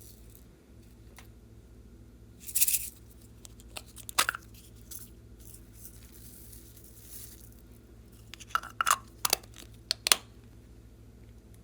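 Slime being squeezed and pulled by hand, giving short crackling, tearing pops: one about two and a half seconds in, another about four seconds in, and a quick run of several near the end, over a faint steady hum.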